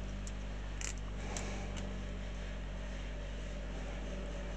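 Steady low hum with a few faint clicks of small plastic model-kit parts being pressed together by hand, most of them in the first second and a half.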